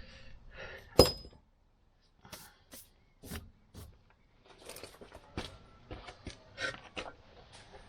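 Metal car parts being handled: one sharp metallic clank with a brief ringing about a second in, then scattered light clicks and clinks.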